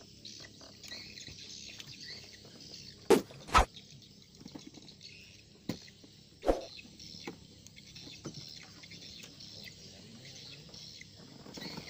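Steady high chirping of dusk insects and birds, broken by four loud knocks: two close together about three seconds in, and two more around six seconds.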